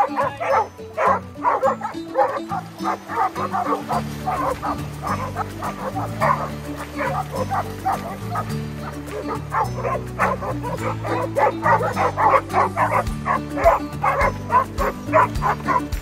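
Several dogs barking and yipping in quick, overlapping bursts over background music with held low notes.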